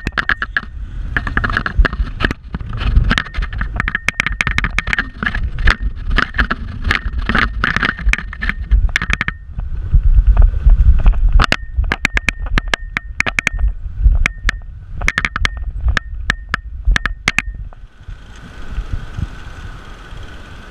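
Mountain bike and its handlebar-mounted camera rattling and clattering as the bike bounces over a rutted, muddy dirt track, with wind rumbling on the microphone and a high squeak coming and going. The rattling stops about 18 seconds in, leaving steady wind noise.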